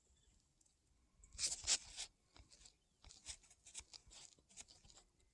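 Scratchy crunching and scuffing on an asphalt-shingled roof: one louder rasping burst about a second and a half in, then a run of short, light scrapes and ticks.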